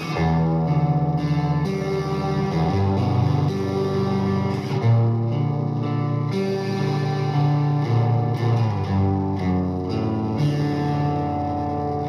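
Electric guitar, a Jazzmaster with Seymour Duncan Quarter Pound pickups, played through an engaged Infanem Driving Notion overdrive pedal into a Harmony 305a amp and a Hiwatt 2x12 cabinet. Held notes and chords ring out, changing about every second.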